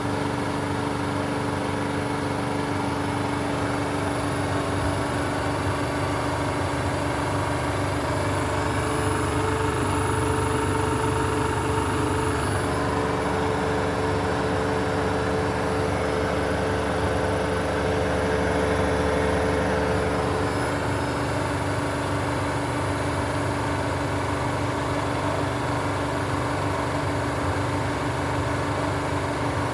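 Siemens WM14S794GB front-loading washing machine in its final spin, with the drum held at about 1550 rpm: a steady whine over a hum, swelling slightly twice before settling.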